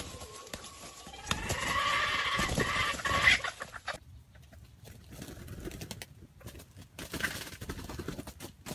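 Red junglefowl rooster calling: one drawn-out, pitched call lasting about two seconds and loudest near its end.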